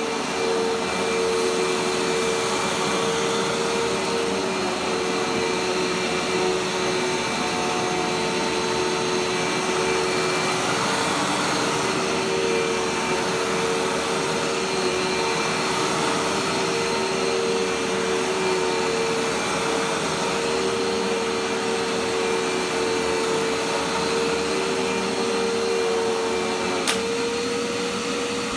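Dirt Devil Dash vacuum cleaner running steadily, its motor giving a constant whine over a rushing noise. A single sharp click comes near the end, after which the motor's tone steps up slightly.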